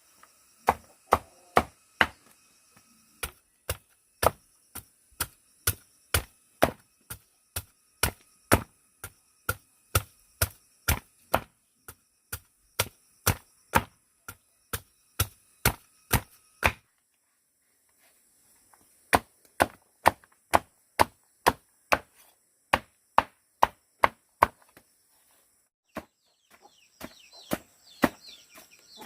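A knife chopping brown tubers (củ nâu) on a wooden board with sharp, even strokes about twice a second. The strokes pause for about two seconds a little over halfway through, then carry on.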